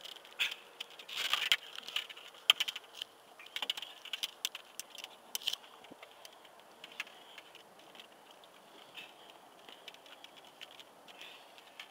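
Faint handling noises as a sea robin is taken off a fishing hook by hand: scattered light clicks, taps and rattles of the hook and rig, a few louder ones in the first half.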